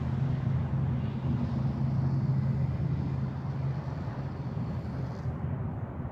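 A steady low hum over a rumbling background noise, level throughout.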